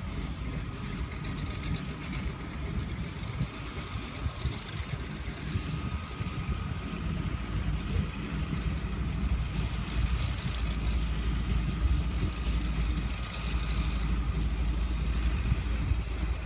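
Seaplane propeller engine running steadily, growing louder about two-thirds of the way through, mixed with low rumble.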